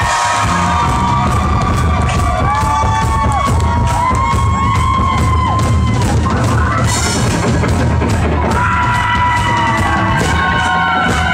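Indie rock band playing live, heard from the audience: drums, bass guitar and pitched lead lines that bend up and down. The bass and drums come in in full right at the start.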